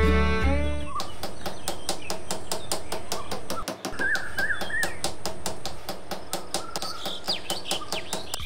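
A small hammer taps striped stick posts down into sand in rapid, even strokes, about six a second. Birds chirp over the tapping from about three seconds in and again near the end.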